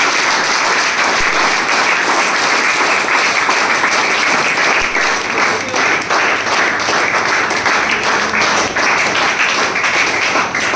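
A roomful of students applauding: many hands clapping at once in a dense, steady round of applause.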